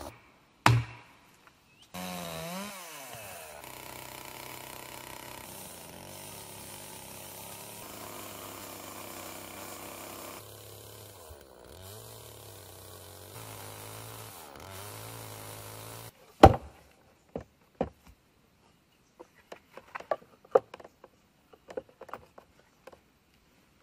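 A two-stroke chainsaw engine running, its pitch dipping and rising again a few times, then stopping abruptly. It is followed by one loud sharp knock and a scatter of lighter knocks.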